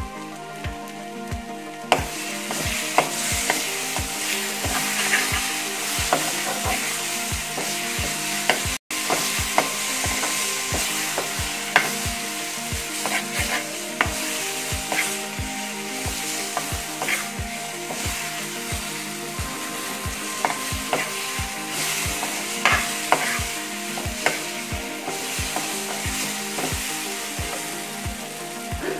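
Spice paste sizzling in hot oil in a frying pan while a metal spoon stirs and scrapes it, with scattered clicks of the spoon against the pan. The frying and stirring get louder about two seconds in.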